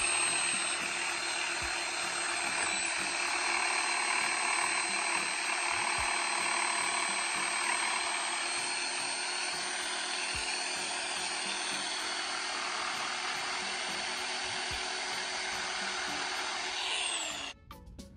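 Reciprocating saw running steadily as its blade cuts through a rotten wooden fence rail, with a constant high whine over the motor. Near the end the motor winds down and stops.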